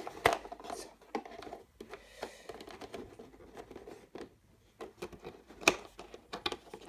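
Light scattered clicks and scrapes of plastic board-game miniatures being handled in a moulded plastic box insert, with one sharper click a little after halfway.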